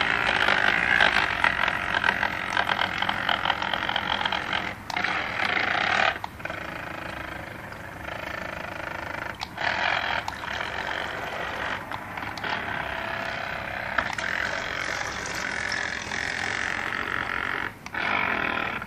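Homemade toy boat's small motor running and its propeller churning the water in a plastic tub, with a few brief breaks.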